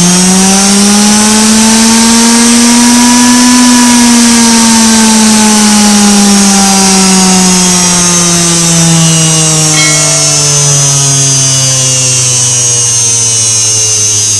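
Brushed (universal) washing-machine motor running on direct mains outside the machine, on a test that shows the motor works: a loud electric whine with a steady brush hiss. The whine climbs in pitch over the first few seconds as it spins up, then slowly falls to about half that pitch through the rest.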